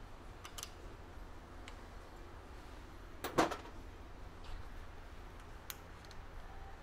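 Hand tools clinking and clicking on metal bike parts while the handlebar stem is straightened and retightened: a few light clicks and one louder metallic clink about halfway through.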